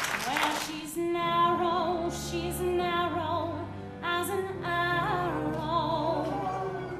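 Music: a woman singing held notes with a wide vibrato over a soft accompaniment.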